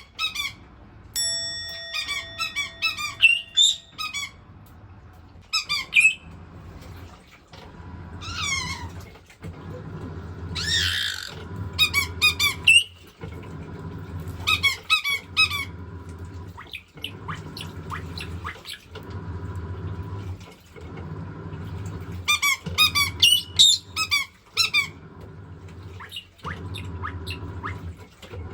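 White-bellied caique giving bursts of rapid, high chirping squawks, with one long falling call about eight seconds in, excited by a running washing machine. The machine's low rumble and water noise run underneath and break off briefly every few seconds.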